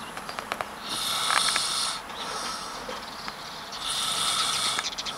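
A person snoring in their sleep: two breathy snores about three seconds apart, each lasting about a second.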